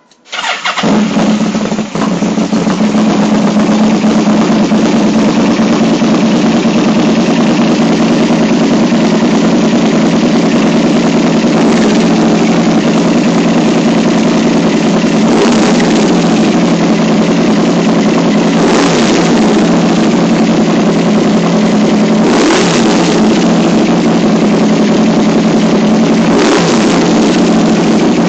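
Yamaha VMAX V4 engine starting through a Nitro Racing aftermarket silencer, then idling loudly and steadily. Near the end come a few short throttle blips.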